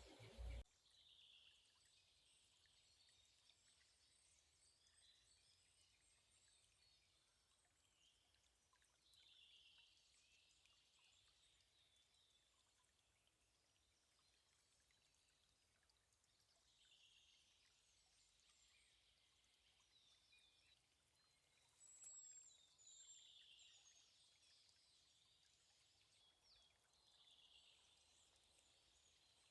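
Near silence with faint bird song: short high phrases recurring every several seconds, and a brief high thin whistle a little over twenty seconds in.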